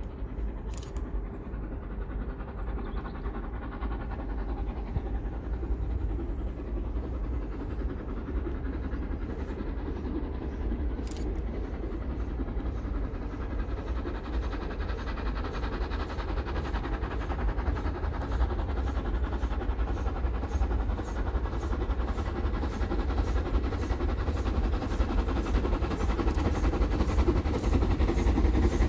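Rebuilt LMS Royal Scot class 4-6-0 steam locomotive approaching at speed with a train, working hard. Its sound grows steadily louder, with its exhaust beats coming through more and more clearly toward the end.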